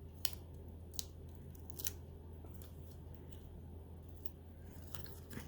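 A few faint, sharp ticks and clicks from small paper and adhesive pieces being handled at the craft table, over a low steady hum.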